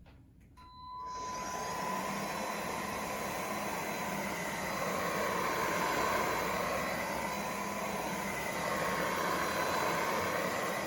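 JS T1 Swift cordless stick vacuum switching on about half a second in and running steadily: a high motor whine over a loud rush of air.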